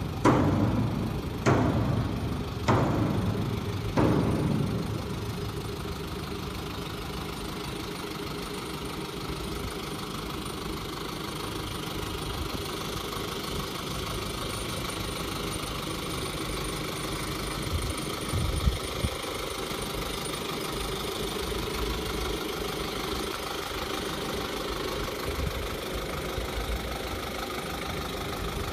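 Engine of a CNJ light truck pulling a tanker semi-trailer, running steadily at low revs. In the first few seconds four sharp, loud bursts come about a second apart.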